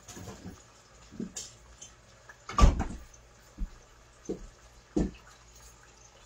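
Refrigerator door swinging shut with a thud about two and a half seconds in, with a few lighter knocks before and after it.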